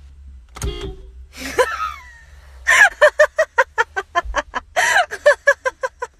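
A brief sharp blast, then a startled woman's cry that falls in pitch, followed by a long run of rapid, hearty laughter, about seven bursts a second, which is the loudest sound.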